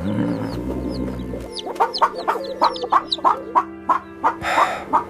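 Chickens clucking in quick short calls, about three a second, over background music, from a cartoon sound track. A low rumbling sound runs through the first second and a half.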